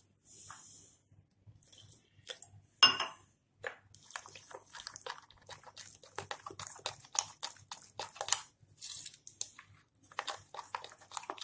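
Metal spoon beating a thick gram-flour (besan) batter in a glass bowl: irregular wet, squelching strokes with light clinks of the spoon on the glass, and one sharp ringing clink about three seconds in.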